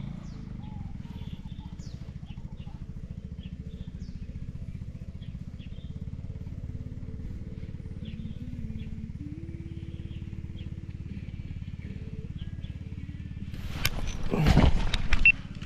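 Small engine running steadily with a low, evenly pulsing rumble, with faint chirps above it. About fourteen seconds in, a louder burst of noise rises over it for a second or so.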